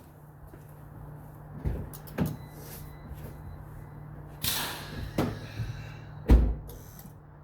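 Knocks and clunks of tools and parts being handled in an engine bay, about five in all, with a scraping rustle midway and the loudest a heavy thump about six seconds in, over a steady low hum.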